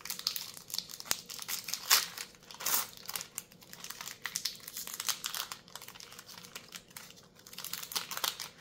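Plastic booster pack wrapper crinkling as it is handled and torn open, an irregular run of crackles with a few louder crinkles about two seconds in.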